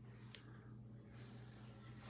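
Near silence: room tone with a steady low hum, a single faint click about a third of a second in, and soft rustling noise in the second half.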